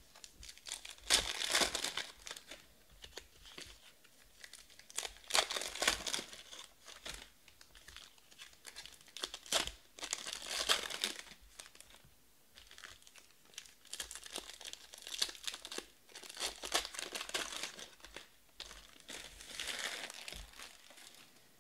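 Foil trading-card pack wrappers being torn open and crinkled by hand, in crackly bursts every few seconds.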